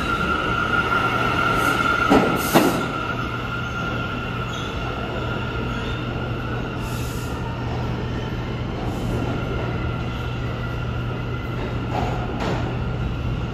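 New York City subway train running through the station, its wheels squealing on the rails in a steady high tone over a low hum. There are a few sharp clacks about two seconds in and another near the end.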